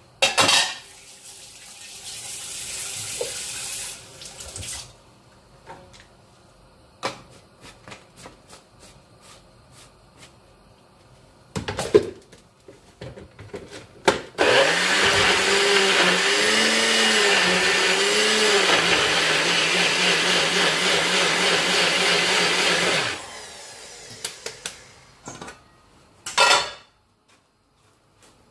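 Personal bullet-style blender running for about eight seconds, starting about halfway through, blending peppers, ginger, garlic and onion. Its motor pitch wavers a few times and then holds steady. Scattered clicks and knocks of the cup and base come before and after.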